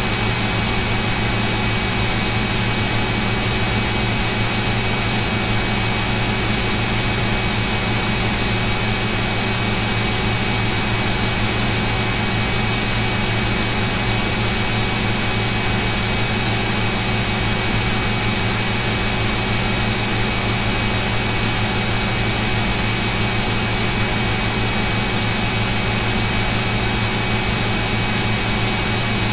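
Steady loud hiss with a low electrical hum underneath, unchanging: the noise floor of an open recording microphone or computer, with no other sound.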